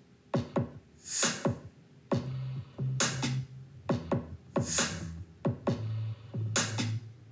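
Electronic drum loop playing back in Soundtrap: repeated kick drums with a crisp high hit about every second and three-quarters. A synth bass line comes in about two seconds in.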